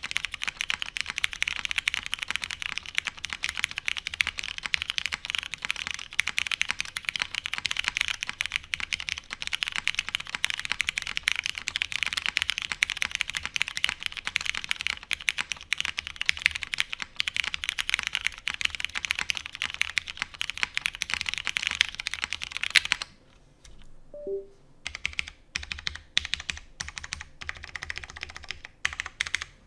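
Fast, continuous typing on a custom mechanical keyboard: an aluminium Matrix 8xv2.0 Add with a polycarbonate plate, tactile Hyperglide brown switches lubed with 205g0, and GMK keycaps. About 23 seconds in the typing stops for roughly two seconds, then resumes as slower, single keystrokes.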